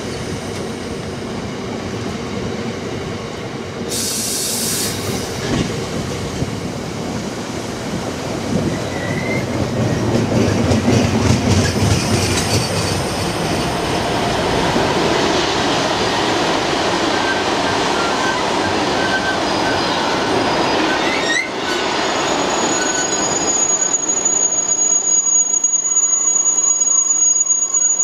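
Cement tank wagons of a freight train rolling past, wheels rumbling and clattering on the rails. A short hiss comes about four seconds in, and a thin, steady, high-pitched wheel squeal sets in about three-quarters of the way through.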